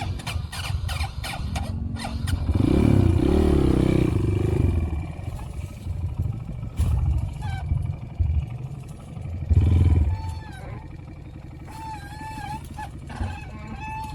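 Motorcycle engine running, revving up louder a few seconds in, with a short loud thump about ten seconds in.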